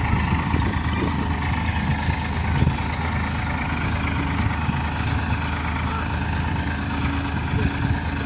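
A vehicle engine idling steadily, a low, even running note.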